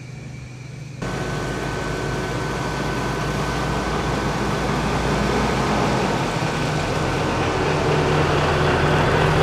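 Biogas-fuelled Iveco truck's engine running as the truck pulls slowly closer, starting abruptly about a second in and growing gradually louder.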